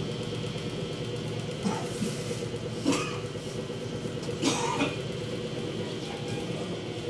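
A person coughing a few short times, about two to five seconds in, over a steady electric hum.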